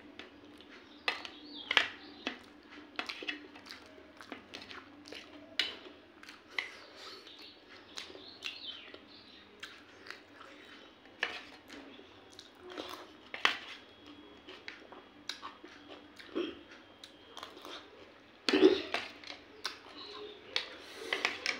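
Close-up eating sounds: a metal spoon clinking and scraping in a steel bowl of wet pea curry, between bouts of wet chewing and lip smacking. The sounds come as scattered sharp clicks, with one louder mouthful near the end.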